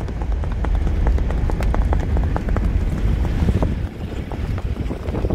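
Hoofbeats of a horse in the rewal, a fast ambling gait: a quick, even run of hoof strikes on hard ground, under heavy wind noise on the microphone.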